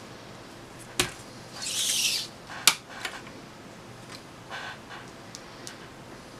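Handling sounds as a flexible tape measure is uncoiled and laid out on a table: a click about a second in, a brief hissing rustle, a sharp tap, then a few light ticks.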